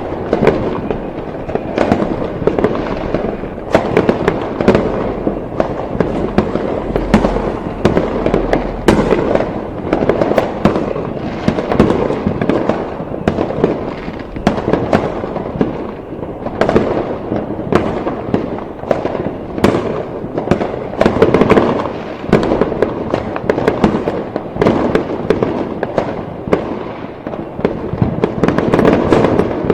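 Dense fireworks display: a continuous barrage of many overlapping bangs and crackling reports, several a second, with no pause.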